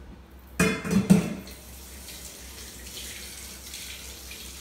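A couple of short knocks about half a second to a second in, then a kitchen faucet running steadily into the sink.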